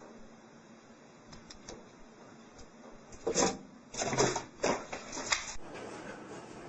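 A quick run of sharp clattering knocks lasting about two seconds, starting about halfway through.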